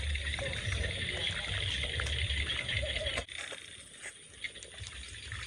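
Steady outdoor hiss with a low rumble of wind on the microphone; the rumble and much of the hiss drop off suddenly a little over three seconds in, leaving a quieter hiss.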